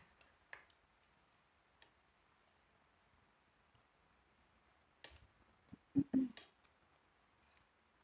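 Quiet eating: scattered small clicks of metal spoons and mouth sounds of chewing, with a few louder sounds close together about six seconds in.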